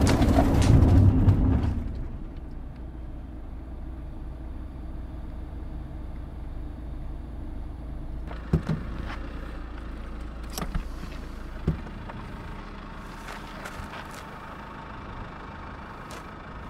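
A loud low sound fades out about two seconds in, leaving a steady low car-like hum. Three sharp knocks stand out at about eight and a half, ten and a half and twelve seconds in, with fainter ticks near the end.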